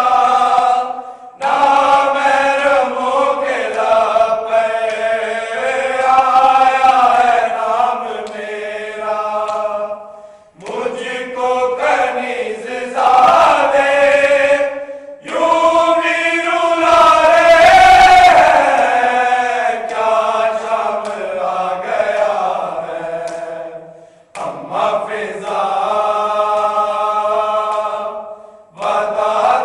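A group of men chanting an Urdu noha, a Shia lament, together without instruments, in long sung phrases with short breaks between them.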